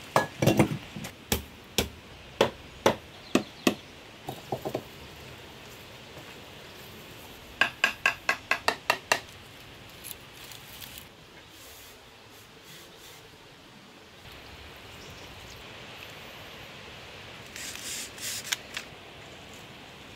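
Hard knocks and clatter of stones and bamboo being handled during shelter building: a burst of sharp knocks at the start, a quick run of about ten even taps around eight seconds in, then soft rustling and a few more clicks near the end, over a steady background hiss.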